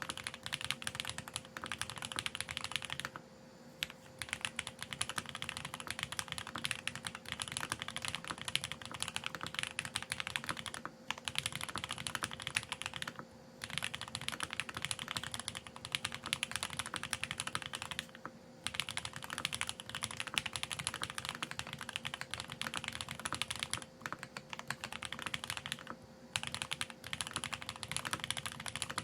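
Continuous typing on a Geonworks F1-8X mechanical keyboard with lubed TTC Speed Silver v2 linear switches and GMK ABS keycaps, many keystrokes a second, stopping briefly several times.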